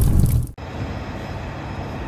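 A low intro sound effect cuts off suddenly about half a second in, followed by a fire truck's diesel engine idling steadily.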